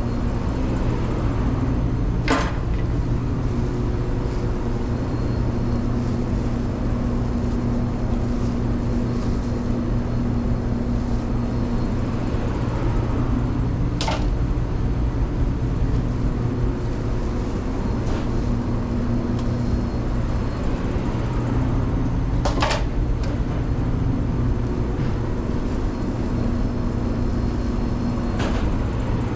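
Steady drone of commercial kitchen equipment, with a low hum that swells and fades now and then. Three sharp metal knocks stand out, about two seconds in, about fourteen seconds in and about twenty-two seconds in.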